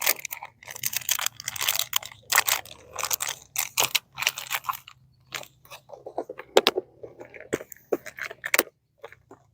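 Crinkling and crackling of a plastic soft-bait package and tackle being handled while a soft-plastic grub is changed, dense at first and then thinning to scattered sharp clicks and knocks.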